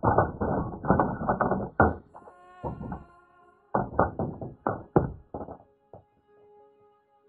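Two clusters of muffled knocks and thumps as gear and a bass are handled against a plastic fishing kayak during measuring and release, with faint steady tones between them.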